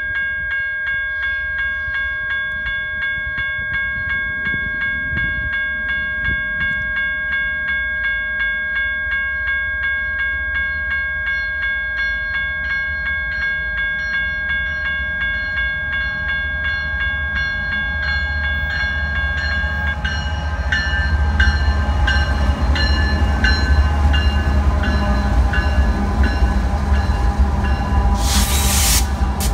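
A grade-crossing warning bell rings steadily with an even pulse of about two strikes a second. About two-thirds of the way through, the low rumble of Norfolk Southern diesel locomotives and rolling stock builds as an oil train arrives, and it gets louder, with a brief burst of hiss as the lead units pass.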